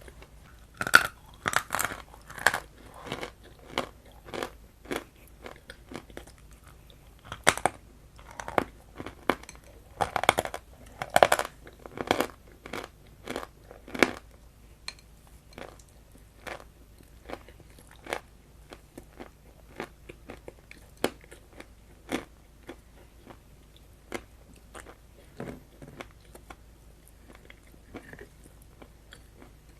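Close-up biting and crunchy chewing of a crumbly, semi-moist food: rapid crisp crunches that are loudest and densest in the first half, thinning to slower, softer chewing clicks later on.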